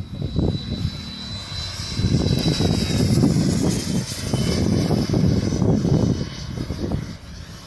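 Aero L-39 Albatros jet trainer's single turbofan engine passing low overhead. The low jet noise swells about two seconds in and fades toward the end, while a high whine drops slightly in pitch as the jet goes by.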